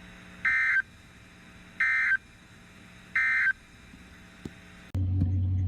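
Three short bursts of Emergency Alert System SAME digital data, each about a third of a second long and a second apart: the end-of-message code that closes a NOAA Weather Radio test. Near the end a steady low hum starts.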